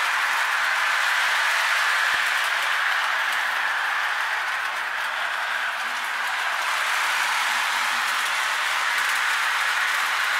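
Lionel O-27 toy train running on three-rail track: a steady, even running noise of wheels and motor that dips slightly midway and then comes back up.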